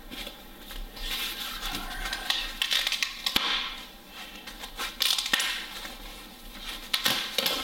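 Crinkling and rustling of foam packing and wrapping being handled and pulled apart, in irregular bursts, with a couple of sharp clicks.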